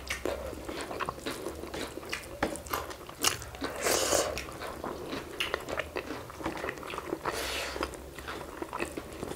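Close-up eating sounds of people eating pork curry and rice by hand: chewing and biting with many short, wet mouth clicks and smacks, and a louder bite about four seconds in.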